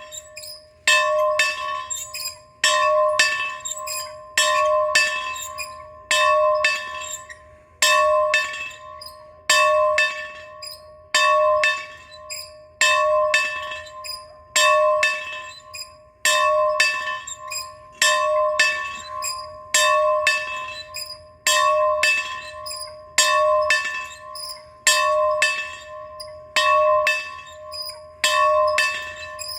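A bell being rung in a slow, steady rhythm, one stroke about every second and a half to two seconds. Each stroke is a clear ringing tone that fades out before the next one.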